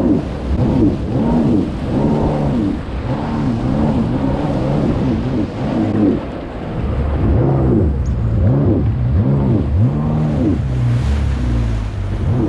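Jet ski engine running hard, its pitch swelling and dropping over and over as the craft bounces across the chop, with wind rushing on the microphone.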